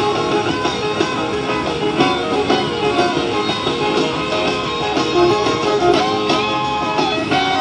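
Music led by guitar, with a steady run of plucked and strummed notes.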